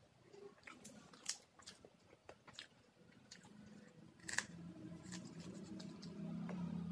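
A person eating rice by hand, close to the microphone: small sticky clicks and mouth sounds as the fingers gather rice, one sharp smack about four seconds in as the handful goes into the mouth, then chewing. A low steady drone grows louder through the second half.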